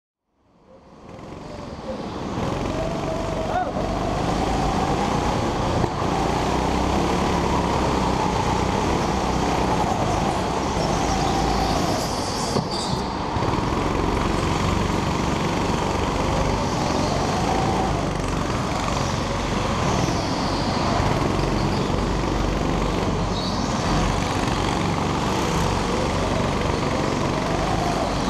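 Go-kart engine heard onboard at racing speed, its pitch rising and falling with the throttle through the corners. It fades in over the first two seconds.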